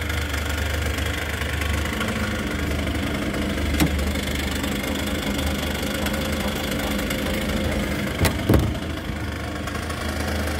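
Casalini Sulky microcar's small engine idling steadily. A sharp click about four seconds in and two knocks close together a little past eight seconds stand out over it.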